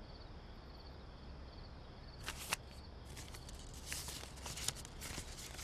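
Faint footsteps and scuffing, beginning about two seconds in, over a quiet outdoor background with a faint, regular high chirping about twice a second.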